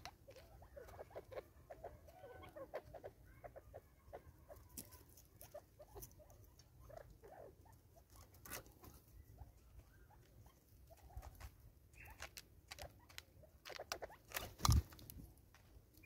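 Spurfowl pecking grain from a plastic bottle feeder: an irregular run of light clicks and taps of beaks on plastic and seed. A few soft, low calls come in the first few seconds, and there is one louder knock near the end.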